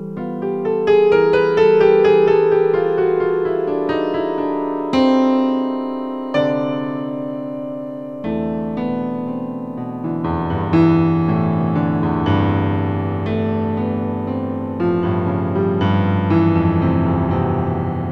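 Electro-acoustic piano music: a solo piano playing ringing chords, with fresh chords struck every few seconds.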